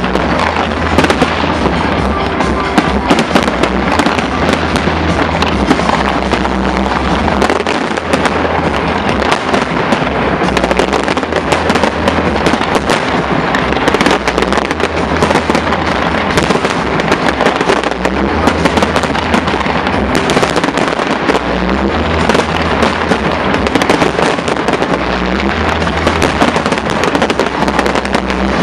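Large aerial fireworks display: a dense, unbroken barrage of bangs and pops, many each second, at a steady loud level.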